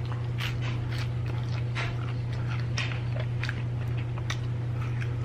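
A person chewing and crunching fried chicken close to the microphone, with irregular crisp crunches and mouth noises, over a steady low hum.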